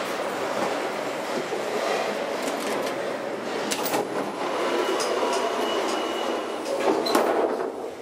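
A 1972 Kone/ASEA/Graham inclined elevator car travelling along its inclined track, with a steady rumbling rattle of its running gear. A few sharp clicks come about four and seven seconds in, and a thin high whine runs for a couple of seconds in the middle.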